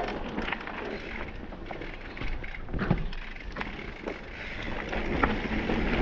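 Specialized Stumpjumper Alloy mountain bike rolling down a dry dirt trail: knobby tyres crunching over dirt, with scattered sharp clicks and knocks from the bike over bumps and wind rushing on the microphone.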